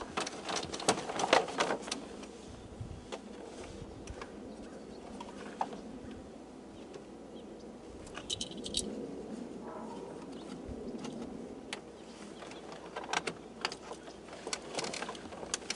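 Scattered light clicks and rattles of plastic electrical connectors being handled and plugged back into a pickup truck's door panel wiring.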